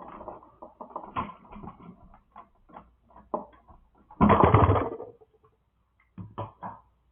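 Hands working with electrical wires and connectors: scattered clicks and rustles, with a louder, longer burst of handling noise about four seconds in.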